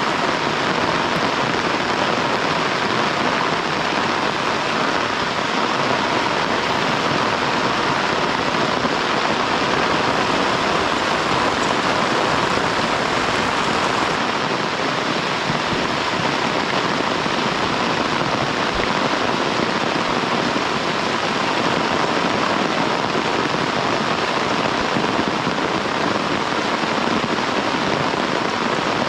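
Heavy rain pouring steadily, a loud, even hiss with no let-up.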